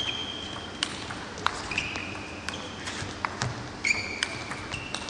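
Table tennis rally: the celluloid ball clicking sharply off the rackets and table, a hit every half second to second, with high, brief squeaks of the players' shoes on the court floor.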